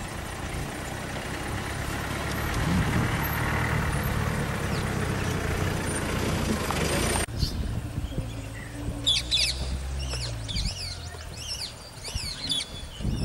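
A vehicle engine idling with a steady low hum under a noisy rush, cut off suddenly about seven seconds in. After that, birds chirping with quick rising and falling calls.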